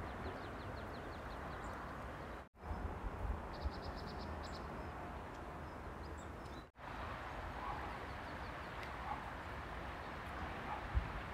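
Open-air hillside ambience: a steady wash of outdoor noise with low wind rumbles on the microphone, and twice a small bird gives a quick trill of high chirps. The sound cuts out briefly twice.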